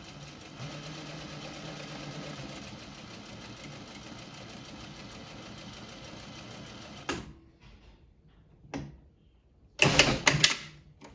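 Juki sewing machine running steadily with a fast, even stitching rhythm as it topstitches through the fabric layers, then stopping about seven seconds in. A few short knocks follow, and a louder cluster of clattering knocks comes about ten seconds in.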